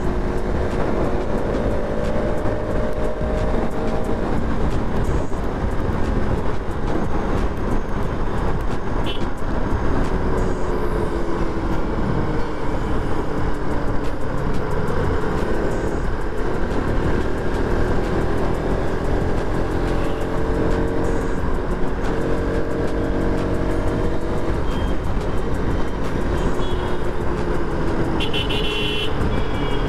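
Motorcycle engine running under way, its pitch rising and falling several times with throttle and gear changes, over heavy wind rush on the microphone and road noise.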